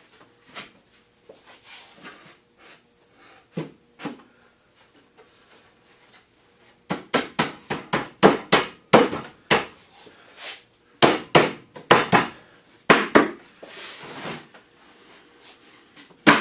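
Pine boards being knocked together at their box joints while a cupboard carcass is dry-fitted. Light clicks of the boards being handled come first. About seven seconds in, a run of sharp wooden knocks starts, roughly three a second, and a short scuff follows near the end.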